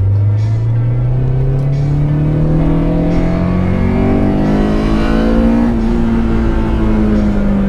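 A Honda Civic's B16A1 VTEC inline-four accelerating hard, heard inside the cabin. Its pitch climbs steadily for about six seconds, then holds roughly level toward the end.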